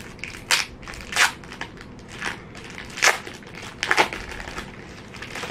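Clear plastic wrapping crinkling as it is pulled off a planner by hand: several sharp crackles with quieter rustling between them.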